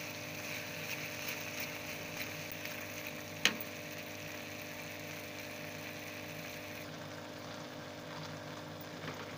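Grated beetroot and melting jaggery sizzling in a clay pot while a steel spoon stirs, with one sharp tap of the spoon against the pot about three and a half seconds in. The hiss thins out about seven seconds in.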